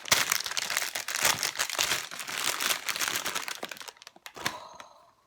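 Packaging being crinkled and torn open to free a squishy toy: a dense, rustling crackle for about four seconds that then dies away, with one last short rustle near the end.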